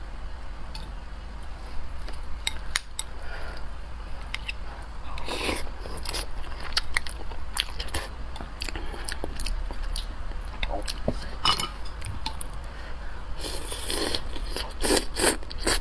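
Close-up sounds of a person eating: bites and chewing with many small, sharp clicks. There are louder flurries about five seconds in and again near the end.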